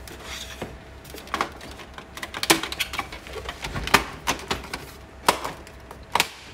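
Irregular clicks and taps of hard plastic being handled on an Epson Stylus Photo 1400 printer's casing as its rear cover is fastened back on, with a few sharper knocks spread through.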